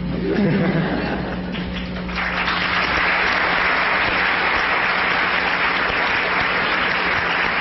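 Student audience applauding: a few scattered claps at first, then full, steady applause from about two seconds in.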